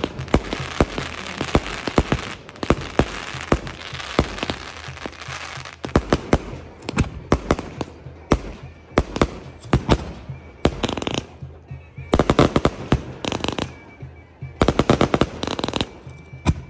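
Aerial fireworks display: shells bursting in a string of sharp bangs over a hissing, crackling background, with two dense runs of rapid crackling about twelve and fifteen seconds in.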